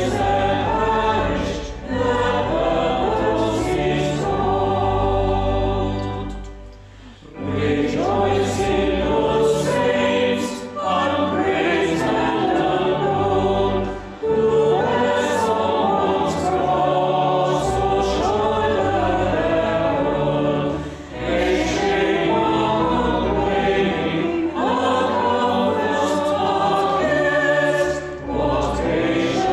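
Choir singing a hymn, with a short break between verses about a quarter of the way in.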